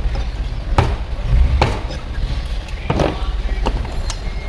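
Butcher's cleaver chopping through chicken: four sharp strikes, spaced roughly a second apart, over a steady low rumble.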